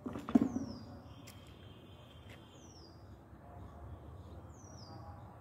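A small bird calling three times, each call a short high whistle sliding down in pitch, about two seconds apart. A brief louder voice-like sound comes right at the start, over a faint outdoor background.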